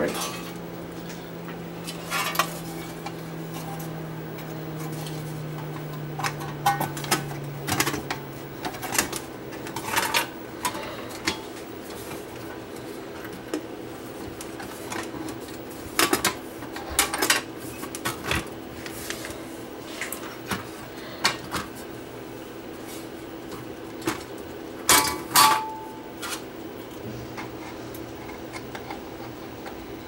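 Metal top cover plates of a Sony CV2000 reel-to-reel video recorder being set back in place and screwed down: scattered metallic clinks and clatters, loudest a little past halfway and twice near the end, over a steady low hum.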